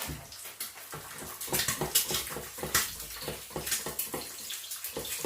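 Egg frying in hot oil in a pan, sizzling with irregular sharp crackles and spits.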